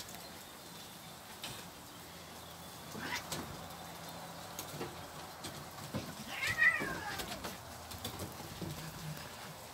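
A cat gives one drawn-out meow that rises and then falls, about six seconds in, complaining at a puppy that is pestering it. There is a shorter rising call near three seconds in, and light taps of paws on wooden decking.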